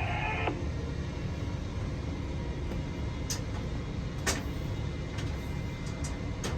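Steady low rumble of crane machinery running during the lift, with a few faint clicks.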